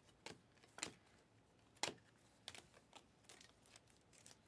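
Faint, irregular clicks and light snaps of Panini Optic basketball trading cards being flipped through in the hands, the cardstock edges tapping as each card is moved to the back of the stack.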